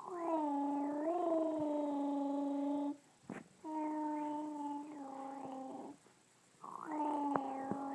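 A voice making a funny noise: three long, steady, pitched calls, each held for two to three seconds with a slight waver, with short breaks between them.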